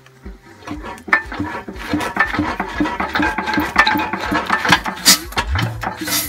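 Imperial Super Diesel hit-and-miss stationary engine clattering and squeaking in a steady rhythm, about three strokes a second, as it is turned over in a starting attempt. There is a louder knock about five seconds in.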